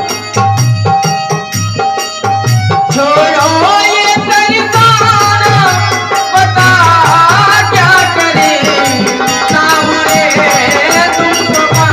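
Krishna bhajan music: a steady drum-and-shaker beat under held instrumental tones, with a winding melody line that enters about three seconds in and glides up and down.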